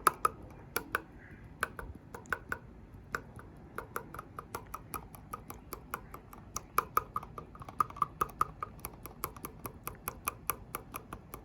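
Rapid, uneven light clicks and taps, several a second, from tapping and shaking a plastic glitter container to pour glitter into a drink bottle.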